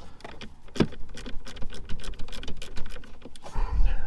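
Small hand ratchet clicking in quick runs as a screw is backed out with a bit socket, with a dull thump near the end.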